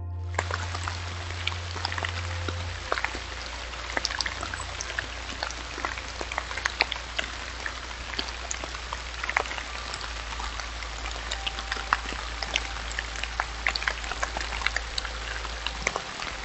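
Rain falling on dry leaf litter: a steady hiss full of many small, scattered drop ticks, over a low steady hum.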